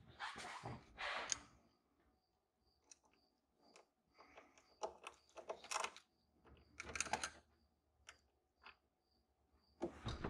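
Faint clicks, scrapes and rustling of hands and a screwdriver working the small screws of a throttle position sensor on a TPI throttle body, in short irregular bursts. A faint regular ticking, about two a second, runs underneath.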